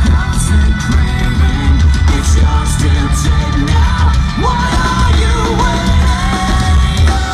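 A live hard rock band plays: electric guitar, bass guitar and drums under a loud sung and yelled vocal. About four and a half seconds in, a high note slides up and is held.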